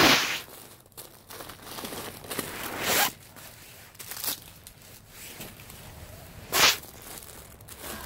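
Plastic trash bags and jacket fabric rustling and crinkling as someone rummages by hand in a dumpster. It comes in a few short bursts, the loudest at the very start and about two-thirds of the way through.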